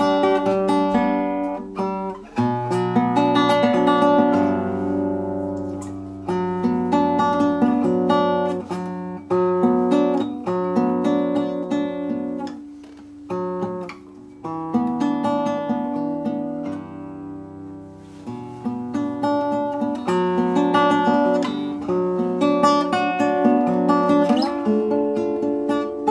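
Handmade seven-string acoustic guitar played solo, a plucked melody over sustained low bass notes. The notes ring and fade in two brief softer passages along the way. It is a sound test of a newly finished instrument.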